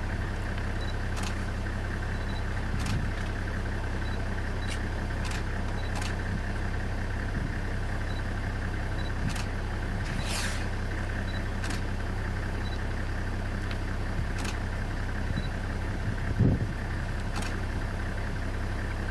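Vehicle engine idling steadily, with faint clicks now and then and a short low thump about sixteen seconds in.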